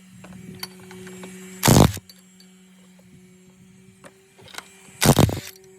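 A power tool fires two short bursts on the engine's bolts, each about a third of a second long and about three seconds apart, over a steady low hum.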